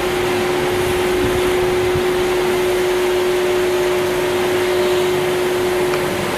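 A steady, loud rushing background noise with a single steady hum tone held through it; the tone stops near the end.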